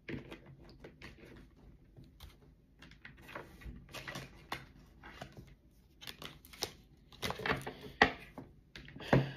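A deck of oracle cards being shuffled by hand: an uneven run of soft card clicks and rustles, growing busier in the second half, with one sharper snap of the cards near the end.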